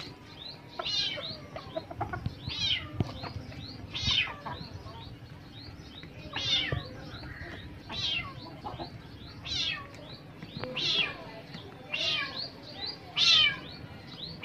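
Kitten meowing repeatedly, loud falling-pitch meows about every second and a half, with fainter short high chirps between them.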